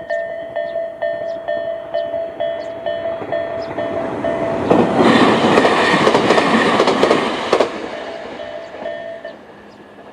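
Japanese level-crossing warning bell (Tobu 'sound A' electronic bell) ringing about three times a second while a Tobu 500 series electric train passes over the crossing for about three seconds, its wheels clicking over the rail joints. The bell stops near the end, once the train has cleared the crossing.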